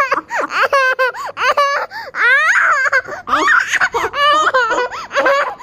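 A toddler and a woman laughing loudly together in quick, high-pitched bursts.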